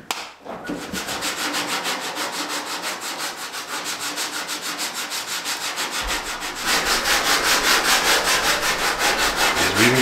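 Sanding block rubbed by hand over the patched fender of a 1966 Plymouth Fury, in rapid back-and-forth strokes of about four or five a second. The strokes get louder about seven seconds in.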